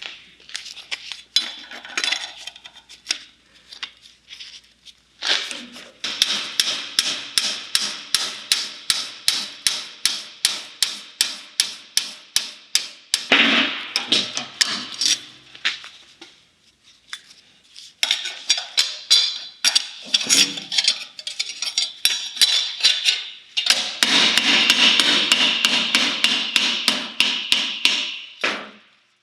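Rapid hammer blows on car body sheet metal, about four a second, in several long runs with short pauses between them.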